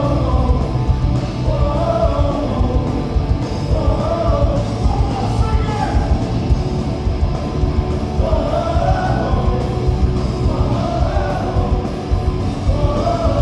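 Live punk rock band playing: distorted electric guitars, bass and drums, with sung vocal lines in short phrases and a few seconds' break in the singing around the middle.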